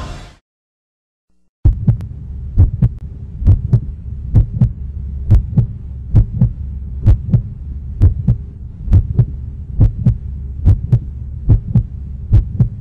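Heartbeat sound effect: a double thump, lub-dub, repeating about once a second over a low steady hum. It starts after the music cuts off and a second or so of silence.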